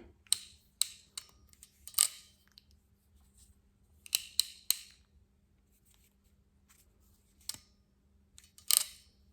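Sharp metallic clicks from a self-adjusting ratchet ferrule crimping tool being handled and adjusted, coming singly and in short bursts at irregular times.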